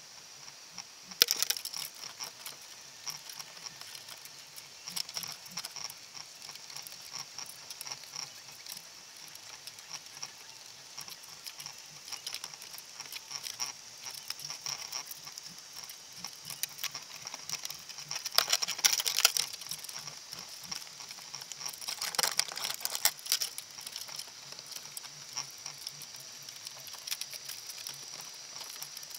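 Underwater sound heard through a camera's waterproof housing on the seabed: a constant crackle of fine clicks over a steady high hiss, with louder rattling bursts about a second in and twice more in the second half.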